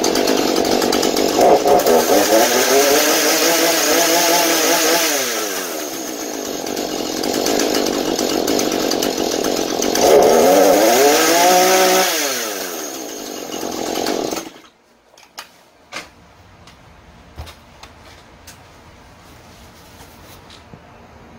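Husqvarna 435 two-stroke chainsaw engine running on fresh fuel, revved up and back down twice, the revs climbing smoothly and holding, after old, wrong fuel had made it stall at idle and under throttle. The engine stops about two-thirds of the way through, followed by a few light knocks.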